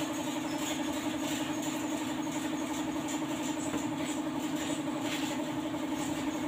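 Air compressor feeding a paint spray gun, running with a steady, unchanging drone.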